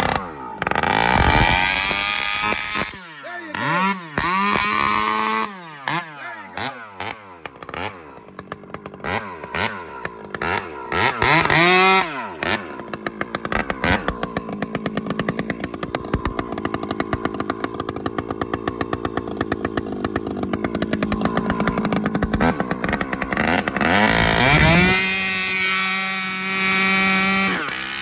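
Husqvarna two-stroke chainsaw with an expansion-chamber (serpent) pipe, its carburettor's high-speed jet just richened a quarter turn. It is revved in quick blips up and down for the first dozen seconds, then run into a log, and held at a steady high pitch near the end.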